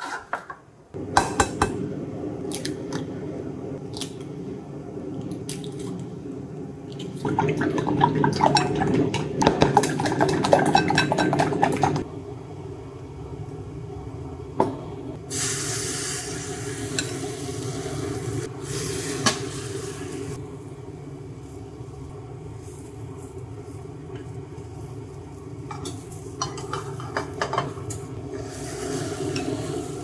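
Making a sweet Japanese rolled omelette (tamagoyaki): chopsticks clicking rapidly against a glass bowl, then beaten egg poured into a hot square pan with a sudden hiss that fades over a few seconds, and chopsticks tapping the pan near the end, over a steady low hum.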